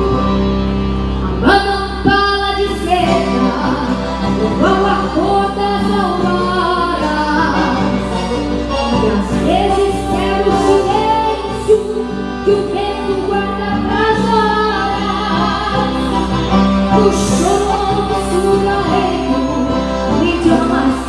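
A child singing a gaúcho native song into a microphone, accompanied by piano accordion and guitar.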